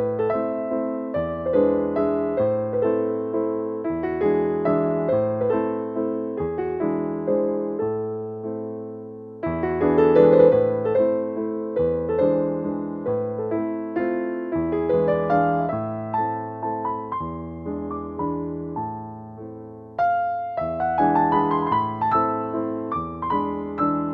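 Background piano music: a slow, gentle melody of struck notes over a low bass line.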